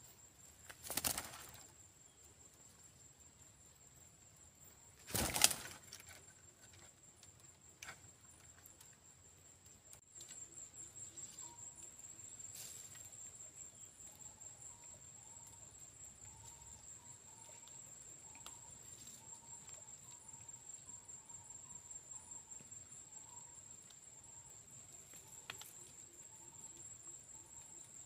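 Two short, loud flutters of parakeet wings, about a second in and again near five seconds, over a steady high-pitched insect drone. The drone grows louder and pulses from about ten seconds in.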